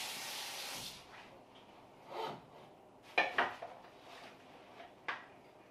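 Kitchen tap running water into a stainless stock pot, shut off about a second in, then a few short rustles and knocks as a plastic trash bag is handled against the pot.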